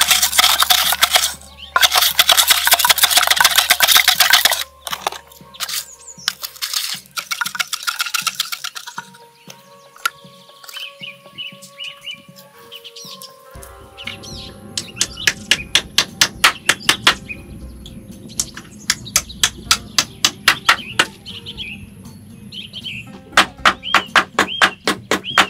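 A loud noisy rush for the first four seconds or so, then runs of quick, sharp knocks, with small birds chirping in between.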